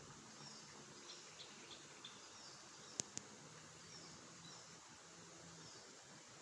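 Faint riverside ambience: a steady high insect hiss with short falling bird chirps repeating, and two sharp clicks in quick succession about halfway through.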